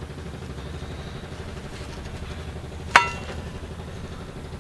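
One sharp, ringing clink about three seconds in, something hard being knocked, over a steady low outdoor rumble.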